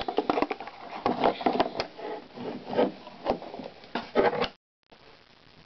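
Cardboard and wrapper packaging of a trading-card box being handled and opened: irregular scraping and rubbing strokes. The sound cuts out abruptly for a moment about four and a half seconds in.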